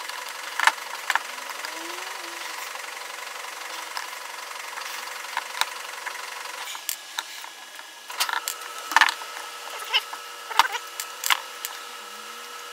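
Screwdriver backing screws out of a Makita XDT15 impact driver's plastic housing and the housing being handled: scattered clicks and knocks of metal and plastic, a cluster of sharper ones in the second half, over a steady background hum.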